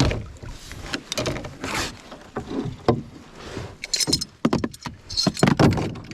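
Irregular knocks, rattles and splashes as a small pike is landed and handled at the side of a boat.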